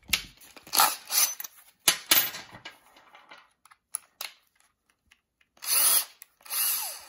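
Cordless drill run in two short bursts near the end while a gloved hand grips its keyless chuck, spinning the chuck loose to swap the drill bit. Before that, a few knocks and rustles of handling.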